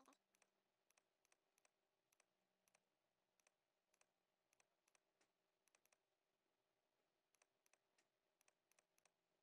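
Faint computer mouse clicks at irregular spacing, often in quick pairs, over a faint steady hum.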